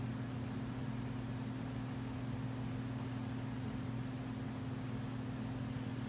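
Homestead Whisperfan III ceiling fan's General Electric stack motor running with a steady electrical buzz, a low hum and its overtone, over a faint airy hiss. The buzz is the fan's known buzzing fault; the motor otherwise runs quietly, with no bearing noise.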